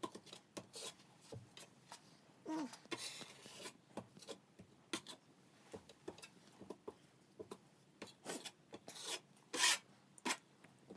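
Drywall knife scraping and spreading joint compound over a sheetrock patch, in short, irregular strokes, the loudest about nine and a half seconds in.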